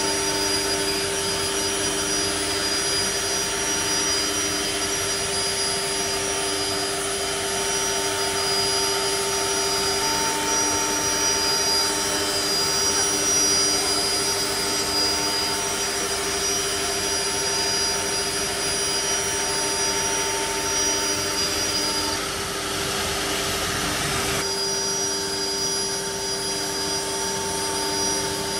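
Four-head CNC nesting router (Holztek R1325-R4) cutting a wood-grain panel: the spindle gives steady whine tones over a continuous hiss of cutting and dust extraction. About three-quarters through, the sound briefly turns louder and rougher.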